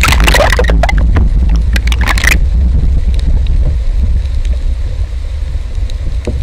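Camera going under the sea surface: splashing and bubbling crackle with sharp clicks for about two seconds, then a steady, muffled low rumble underwater.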